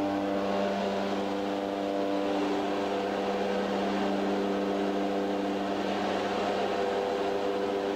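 Engine of a small skydiving jump plane droning steadily, heard from inside the cabin: an even hum whose pitch does not change.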